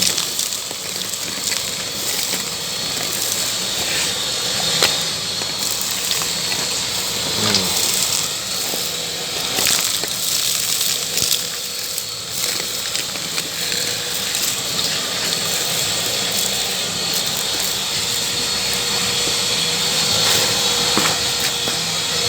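Makita VC3011L 1000-watt construction vacuum running steadily, a loud rushing hiss, with scattered clicks and knocks of sand, pebbles and bits of old spruce insulation rattling up the hose.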